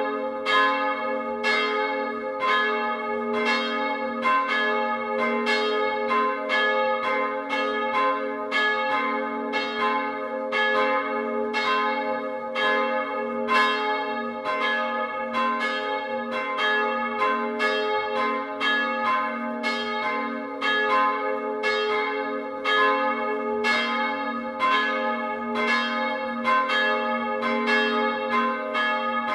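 Two historic church bells swinging and ringing together in a full peal, heard close up in their wooden bell frame. Their clapper strokes fall in an uneven, overlapping rhythm, about two a second, over a steady ringing hum.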